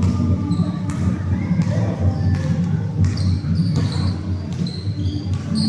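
Basketball game on a hard court: the ball bouncing in repeated thuds, with short high sneaker squeaks from about halfway through, over players' and bench chatter.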